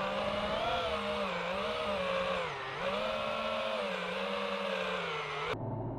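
iFlight Titan DC5 FPV quadcopter's motors and propellers whining, the pitch rising and dipping as the throttle changes. Just before the end the sound cuts abruptly to a lower hum that climbs in pitch.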